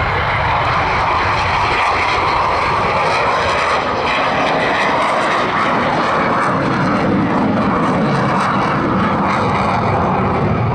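Saab 35 Draken jet fighter's turbojet engine running loud and steady as the jet climbs away after takeoff and passes by: an even rush of jet noise.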